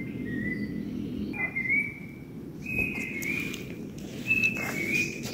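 A forest bird calling: four whistled phrases of about a second each, wavering slightly in pitch, over a steady low background noise.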